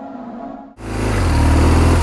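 The end of an intro music sting, cut off abruptly about three-quarters of a second in by a BMW R1200 GS boxer-twin motorcycle engine running under way, a loud low steady drone with wind noise rushing over the microphone.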